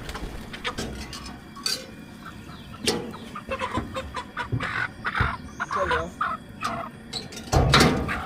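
Chickens clucking and squawking while being handled, with scattered knocks and a loud burst of noise near the end.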